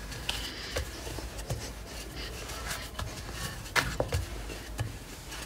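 Wooden rolling pin rolling dough out on a floured stone countertop: faint soft rubbing with a few light clicks and knocks, the clearest a little before the end.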